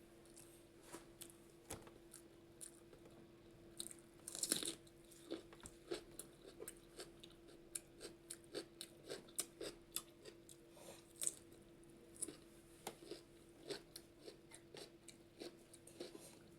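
A person eating close to the microphone: chewing and mouth sounds made of many short, irregular clicks and smacks, with a louder cluster about four seconds in. A faint steady hum runs underneath.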